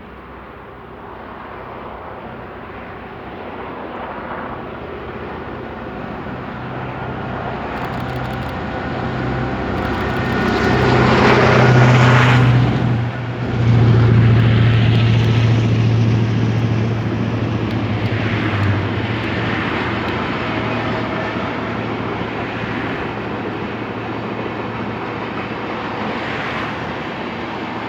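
Renfe class 319 GM diesel locomotive passing at the head of a container freight train. Its engine drone grows louder for the first twelve seconds or so and stays loud for several seconds as it goes by. The rumble of the passing train then eases off slowly.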